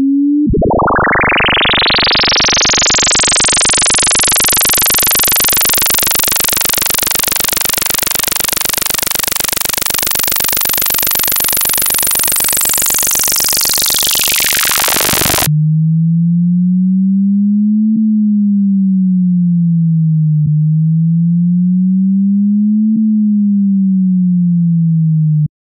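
Synthesized speaker water-eject tones. A harsh, buzzy tone full of overtones sounds for about fifteen seconds and cuts off suddenly. A low pure tone follows, slowly sliding up and down in pitch twice, and stops just before the end.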